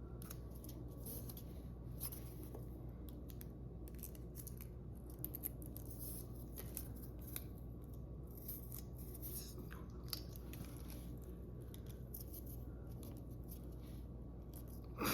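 Faint, scattered snips, clicks and rustles of hand crafting work on cardboard glasses, over a steady low room hum.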